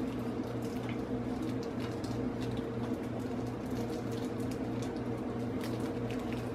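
A small plastic bag filled with liquid coconut-milk mixture being handled and knotted shut: faint crinkles, clicks and squishes, over a steady electrical hum.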